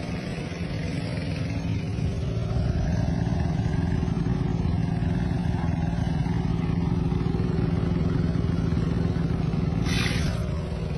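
Boat engine running at a steady drone, getting a little louder about two seconds in. A brief hiss near the end.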